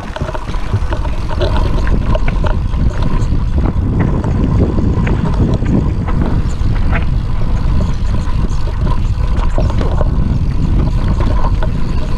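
Wind buffeting the camera microphone as a mountain bike rolls down a rocky trail, with tyre noise and frequent clicks and rattles from the bike over the rock.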